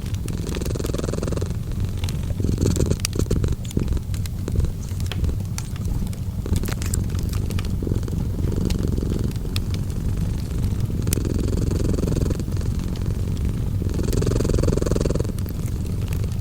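Cat purring steadily, swelling and easing with each breath every few seconds, over a wood fire crackling and popping with scattered sharp clicks.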